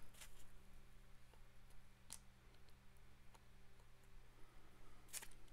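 Near silence with a few faint clicks and taps of plastic speaker-housing parts and a small screwdriver being handled, the loudest about five seconds in, over a low steady hum.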